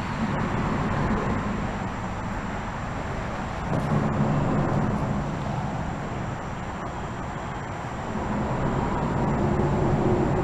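Road traffic droning steadily, with the low rumble of passing vehicles swelling about four seconds in and again near the end.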